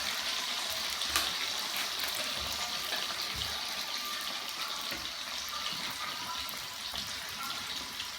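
Hot oil sizzling steadily as yam chips and chicken wings deep-fry in the pan, with one sharp click about a second in.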